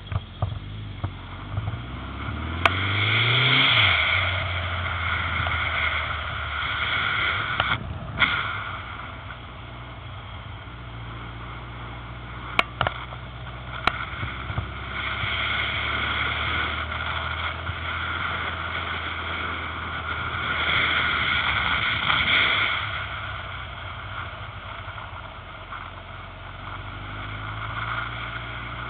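Yamaha XJR motorcycle's air-cooled inline-four engine being ridden, speeding up with a rising pitch a couple of seconds in, then running steadily. Wind rushes over the helmet-mounted microphone, swelling and fading several times, with a few sharp knocks.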